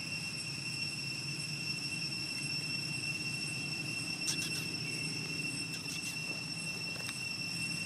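Steady high-pitched insect drone, with a low steady rumble underneath and a few faint clicks around the middle.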